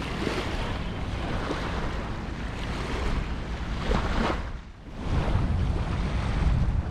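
Wind buffeting the microphone over the steady wash of waves on the shore, with a short lull about four and a half seconds in before the wind picks up again.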